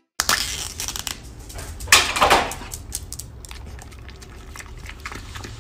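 A dog licking yogurt off the lid of a small plastic cup held in the fingers: a quick run of wet lapping clicks and crinkling of the lid, with a louder stretch about two seconds in.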